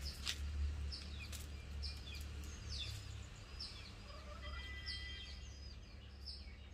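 Birds chirping: a string of short, high chirps, each falling in pitch, repeated about every half second, over a low rumble.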